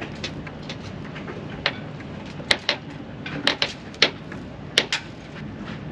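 Irregular sharp clicks and knocks, about seven in a few seconds, over a steady low rush of background noise.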